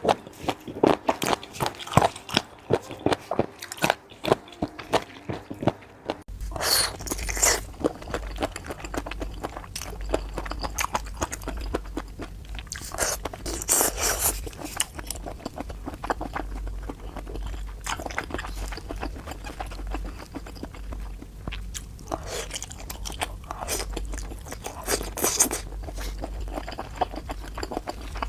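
Close-miked eating of seafood: irregular crunching, biting and wet chewing, densest and sharpest over the first few seconds. A steady low hum comes in about six seconds in.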